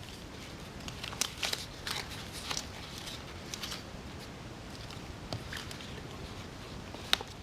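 Hands handling and fitting parts into a golf practice mat's tray: scattered light rustles and small clicks, busiest in the first few seconds, with one sharp click near the end.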